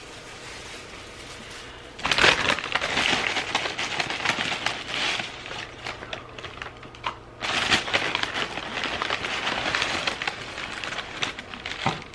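Takeout bag and food packaging crinkling and rustling as the food is unpacked, starting about two seconds in, pausing briefly in the middle, then going on.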